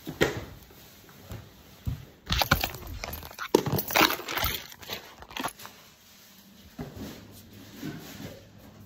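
A string of knocks, bumps and rustles from the workout board being swung and handled close to the microphone, thickest and loudest from about two to five seconds in, then a few scattered softer knocks.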